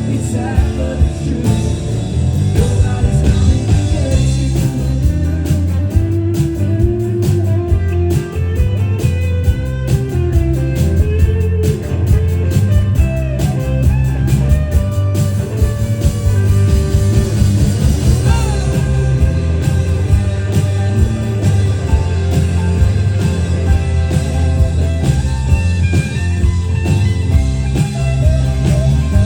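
Live rock band performing a song with a blues-rock feel, a guitar prominent over a steady bass line; a bending, sliding lead line comes through about two-thirds of the way in.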